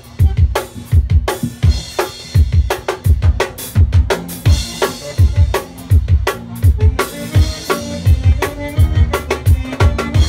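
Live drum kit playing a steady, driving zydeco beat, the kick drum landing about three times a second under sharp snare and cymbal hits, with the band's low notes underneath.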